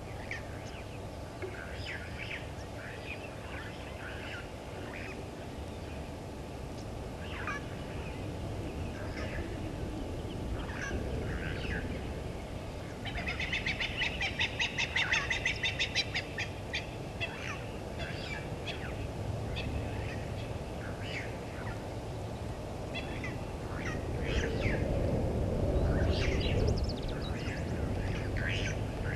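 Wild birds calling: scattered short chirps and whistles throughout, with a fast rattling run of notes for about three seconds from a little under halfway in. A low rumble rises briefly near the end.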